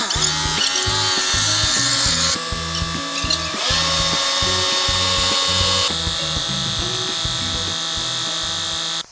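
Background music with a steady beat, over the noise of a power tool running on a construction job. The tool noise changes abruptly a few times, and everything cuts off suddenly near the end.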